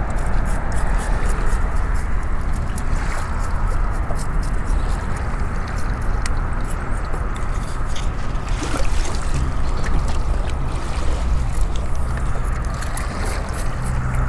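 Steady wind rumble on the microphone over shallow water sloshing and gurgling against a beached boat's hull, with scattered light clicks.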